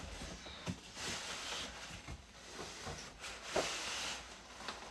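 Rustling and scraping of the monitor's cardboard and foam packaging as it is handled and pulled apart, with a few light knocks.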